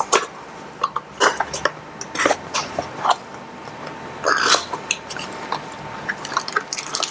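Packaging being handled while unboxing the motion sensor and its accessories: scattered small clicks and taps with short crinkly rustles, the longest rustle about four seconds in.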